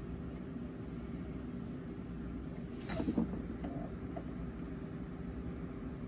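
Steady low room hum, with one brief soft noise about halfway through.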